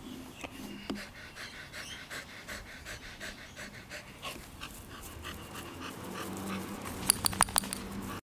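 A bull terrier-type dog panting steadily, about three breaths a second. About seven seconds in, a quick run of sharp clicks is the loudest sound, and the sound cuts off just before the end.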